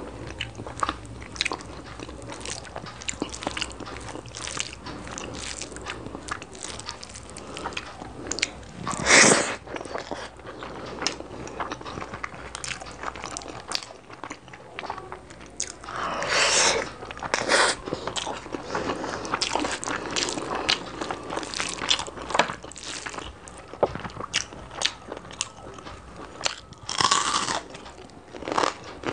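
Close-miked eating: wet chewing, mouth smacks and bites as chicken curry and rice are eaten by hand. There are many small clicks throughout, with louder bites about nine seconds in, twice between sixteen and eighteen seconds, and again near the end.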